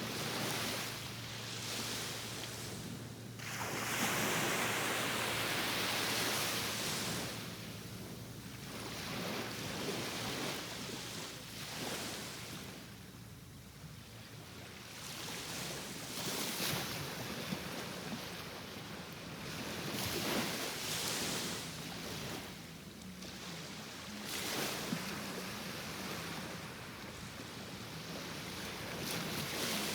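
Ocean surf: waves washing in as a broad rushing hiss that swells and fades every few seconds.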